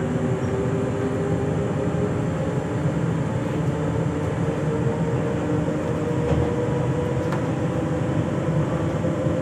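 Z2N double-deck electric multiple unit standing at the platform, its onboard equipment giving a steady electrical hum with several held tones over a low rumble.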